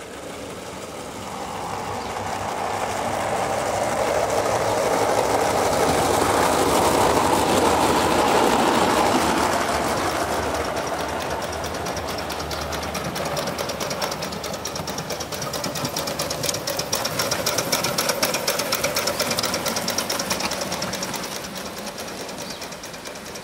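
Gauge 1 model trains running on garden track, wheels clattering over the rails. The clatter swells as one train approaches and passes, eases off, then swells again with a rapid clicking as a second train passes, fading near the end.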